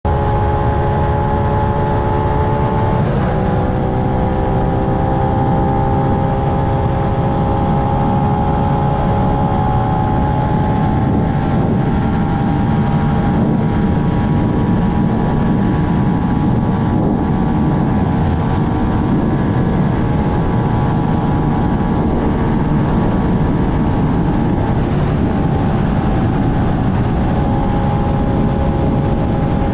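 Suzuki SV650X's V-twin engine held at high, steady revs at top speed, under heavy wind noise on the microphone. The engine note dips briefly about three seconds in and again near the end.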